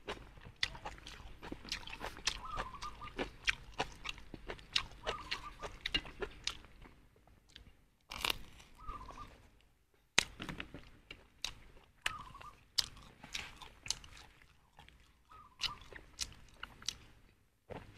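Close-up eating sounds of a man eating bread and stir-fried goat offal: crunching bites and wet chewing in irregular clicks, with a couple of brief pauses about halfway through. A few faint short calls sound in the background.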